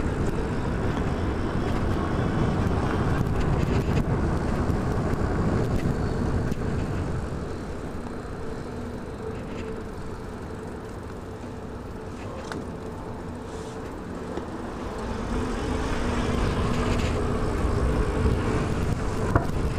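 City street traffic and road noise, a steady dense rumble that fades somewhat about halfway through and builds up again near the end.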